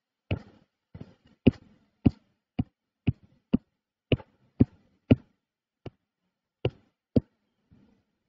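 A run of short, sharp clicks from the computer as pages are scrolled through on screen, about fourteen in all at roughly two a second, uneven in spacing and a little sparser near the end.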